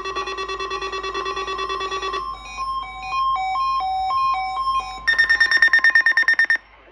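Electronic emergency alert tones from an Emergency Alert System test broadcast: a rapidly pulsing multi-pitch tone, then from about two seconds in a stepped sequence of beeps alternating between two or three pitches, then a higher rapidly pulsing tone that cuts off abruptly near the end.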